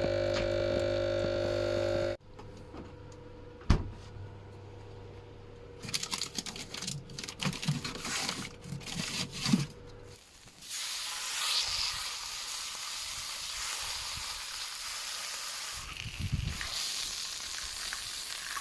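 Food sizzling as it fries, a steady hiss that takes up the second half. Before it come a couple of seconds of droning background music, then a sharp knock and some clattering.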